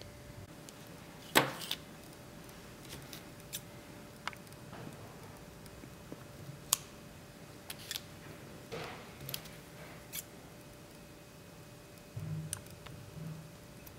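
Scissors snipping: a series of sharp clicks of the blades closing, the loudest about a second and a half in, with soft handling sounds between.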